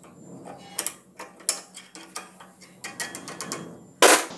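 Valve spring compressor being screwed down on a valve spring of a Greaves engine's cylinder head: a string of sharp metal clicks and scrapes, about two a second, with a louder clack near the end.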